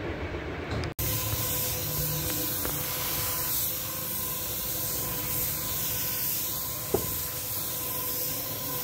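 Compressed-air spray gun spraying paint: a steady hiss that starts about a second in, with a faint steady hum beneath it and one short click late on.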